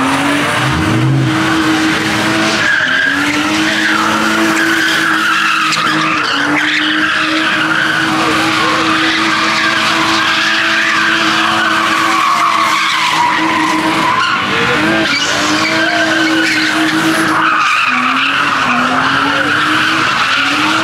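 A car doing donuts, its engine held at high revs while its tyres screech without a break. The revs dip briefly a few times and climb back up.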